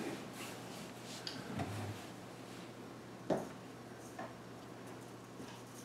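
Quiet handling noises as props are taken out of a bag on a table: a few scattered soft clicks and knocks, one louder knock a little over three seconds in, over a low steady room hum.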